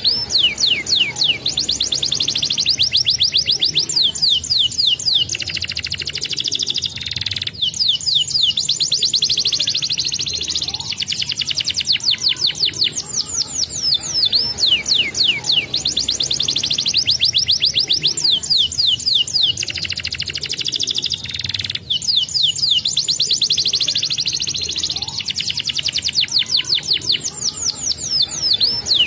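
Canary singing: long, fast trills of high, falling notes, run after run with short breaks between phrases.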